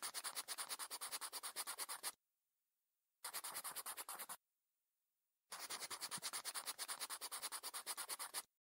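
Pen scratching across paper in quick, even writing strokes. There are three stretches: the first stops about two seconds in, a short one runs from about three to four and a half seconds, and the last starts about five and a half seconds in and stops just before the end, with dead silence between them.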